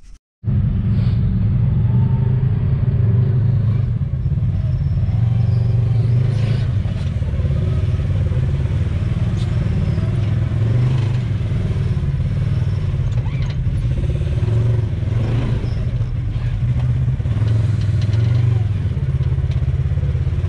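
Polaris RZR XP 1000's twin-cylinder engine running at low revs, its pitch rising and falling a little, as it crawls slowly over rocks. It starts abruptly about half a second in, with a few scattered knocks along the way.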